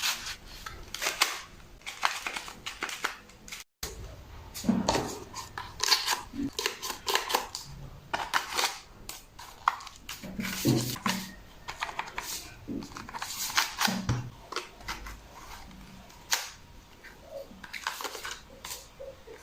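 Irregular clicks, knocks and clatter of small hard objects being handled, with a few duller thuds.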